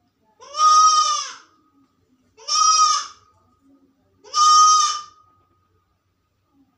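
Young goat kid bleating three times, each call about a second long, rising then falling in pitch: a kid calling while left alone.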